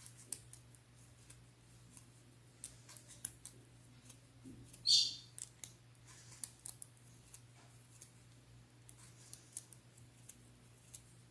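Crochet hook and thread clicking and scraping against an aluminium soda-can pull tab as double crochet stitches are worked over it, with scattered light clicks and one louder scrape about five seconds in. A low steady hum underneath.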